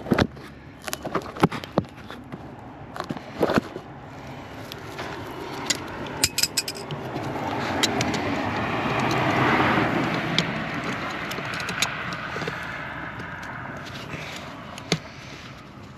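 Scattered sharp clicks and knocks of handling, then a vehicle passing, its noise building over a few seconds, peaking near the middle and fading away.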